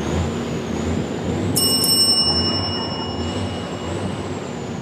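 A bicycle bell rung, two quick strikes about one and a half seconds in, its high ring fading over about a second, over a steady rushing background noise.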